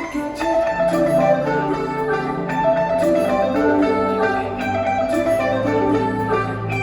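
Instrumental music: a melody of short plucked notes over a low held bass note that comes in about a second in.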